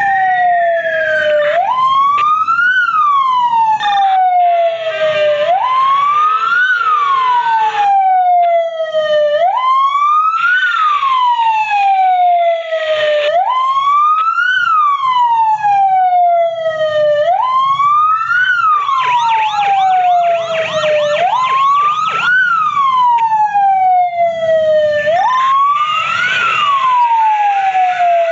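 Fire engine sirens sounding together. The loudest rises quickly and falls slowly, repeating about every four seconds, and other sirens with quicker wails join in past the middle.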